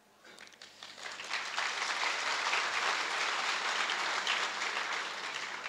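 Audience applauding, swelling up over the first second and a half, holding steady, then starting to die away near the end.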